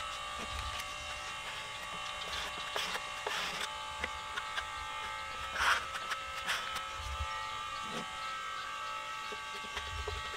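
Small electric power tool running with a steady whine, with short bursts of grinding against wood a few times.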